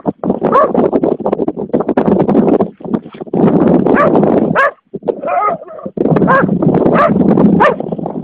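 Dog barking and yelping over and over in short, loud calls, with a couple of brief pauses.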